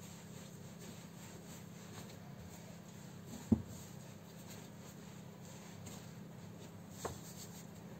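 Hands kneading risen yeast dough a second time on a silicone mat: soft rubbing and pressing. A sharp knock comes about three and a half seconds in, and a lighter one near the end.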